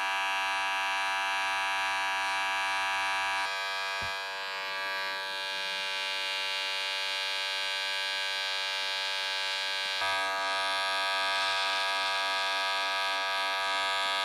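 Wahl Detailer cordless hair trimmer running with a steady electric buzz as it cuts hair on a person's head. Its tone shifts slightly about three and a half seconds in and again about ten seconds in.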